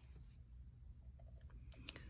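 Near silence: room tone with a faint low hum and a couple of light ticks near the end.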